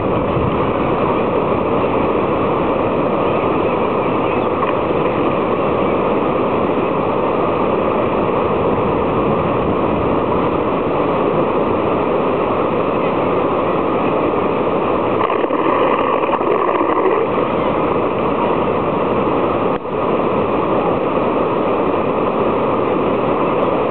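Creek water rushing over and through a low-water bridge, a loud, steady rush that dips briefly once near the end.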